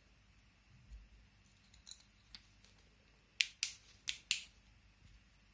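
Small sharp plastic clicks from a walking cane's LED torch head being handled: a few faint ticks, then four crisp clicks in two quick pairs past the middle, as the light is tried and fails to come on.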